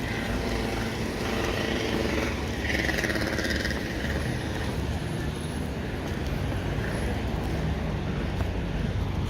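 Road traffic passing outdoors: a steady low rumble of car and truck engines and tyres.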